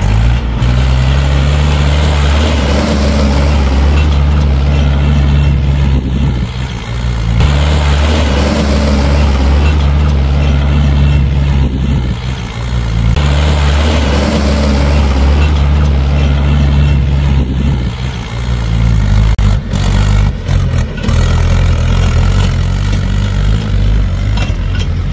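Mahindra tractor's diesel engine running hard as it drives through loose sand, a steady deep drone that shifts abruptly about 7 and 13 seconds in. A few sharp knocks come near the end.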